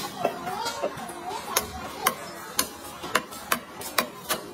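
Knife cutting meat on a cutting board: a steady run of sharp knocks from the blade meeting the board, about two a second, coming quicker toward the end.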